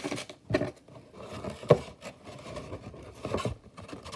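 Cardboard box being handled and pressed: rubbing and scraping of cardboard with a few sharp knocks, the loudest about one and a half seconds in.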